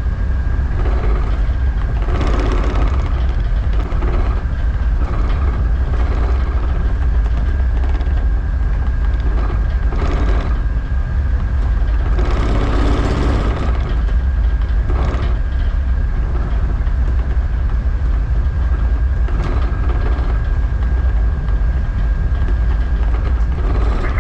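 Tugboat diesel engines running steadily: a deep, constant rumble with a thin steady whine above it.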